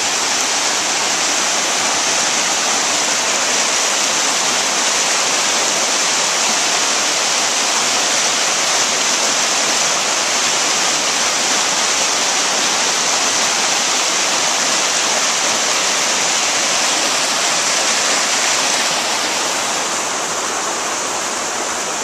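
Waterfall rushing steadily: a loud, even hiss of falling water that eases slightly near the end.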